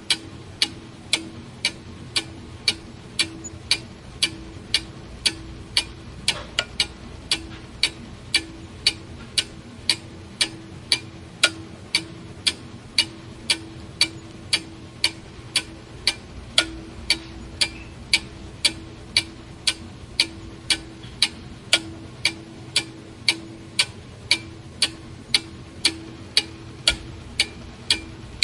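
A clock ticking steadily, with evenly spaced sharp ticks a little under two a second. A steady low hum runs underneath.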